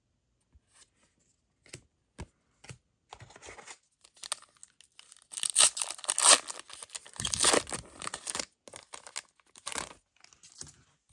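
A Disney Lorcana booster pack's shiny wrapper being torn open: a loud crinkly ripping for about three seconds in the middle. Before and after it come scattered light clicks and taps of the cards being handled.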